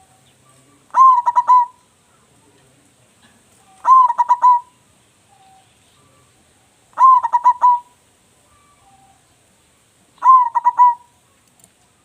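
Zebra dove (perkutut) singing its loud cooing song: four phrases about three seconds apart, each a rising opening note followed by a quick rolling run of coos. A local bird with a big voice, the kind of song used as a lure to set other perkutut singing.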